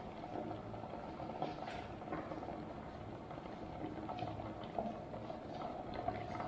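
Electric kettle with eggs inside, the water boiling with a steady bubbling and a few faint ticks.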